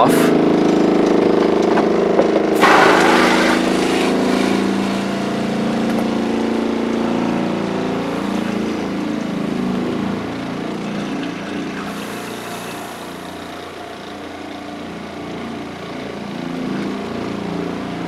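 ShurFlo RV fresh water pump running steadily and not shutting off, because air in the lines keeps the pressure switch from reaching cut-off. A brief hiss about three seconds in, then the hum slowly fades.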